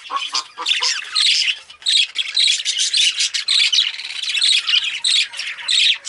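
Budgerigars chattering: a dense, continuous stream of quick high chirps and warbles, with a run of rapid repeated lower notes in the first second.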